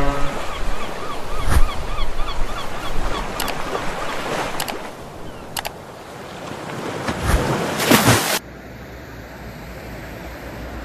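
Sea waves washing, with repeated bird calls and several sharp clicks from an intro's sound effects, building to a sweep that cuts off abruptly about eight seconds in. After that comes a quieter, steady low outdoor rumble.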